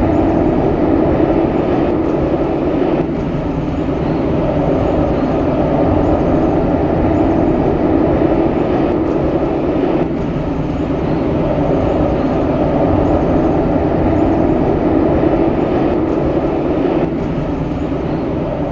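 ATR 72-600's twin Pratt & Whitney PW127 turboprop engines and propellers running as the airliner rolls out along the runway after landing: a loud, steady drone that dips slightly about three seconds in.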